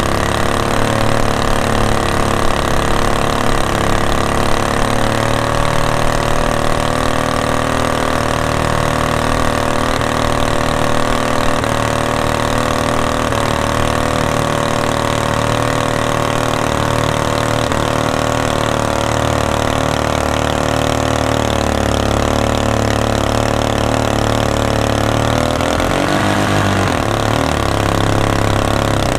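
Predator 212 single-cylinder four-stroke engine on a mud motor kit, running steadily at speed as it drives a 10-foot jon boat. Near the end its pitch dips briefly and comes back up.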